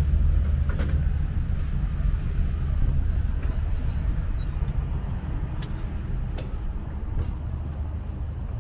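Low rumble of road traffic, a vehicle's engine slowly fading as it moves away, with a few faint clicks.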